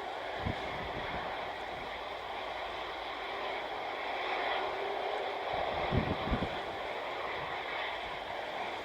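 Airbus A330's jet engines running, a steady rushing whine with several held tones. Wind buffets the microphone with low thumps about half a second in and again around six seconds.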